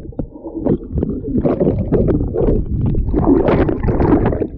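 River rapids churning and splashing around a handheld action camera held close to the water: a loud, rough, irregular rush of water on the microphone, heaviest in the low end.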